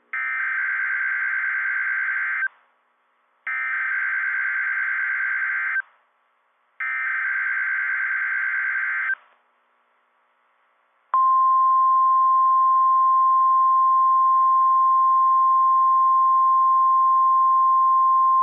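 NOAA Weather Radio emergency alert: three bursts of the SAME digital header, a harsh warbling data tone, followed about 11 seconds in by the louder steady 1050 Hz warning alarm tone. This is the coded header and alert tone that trips Emergency Alert System receivers for a tornado warning, here a live-coded test.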